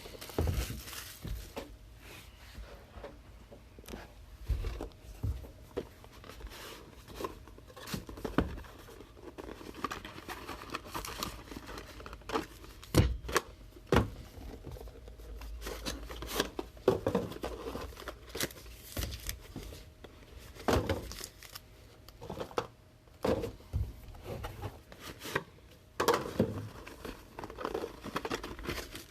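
Plastic shrink wrap and cardboard crinkling and tearing as sealed trading-card boxes are opened by hand, with scattered sharp taps and knocks of the boxes being handled, the loudest about 13 seconds in.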